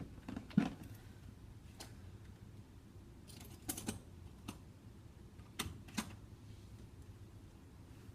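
Sparse light clicks and taps of hands handling the laptop's plastic display parts, a few isolated ones spread over several seconds, over a faint low hum.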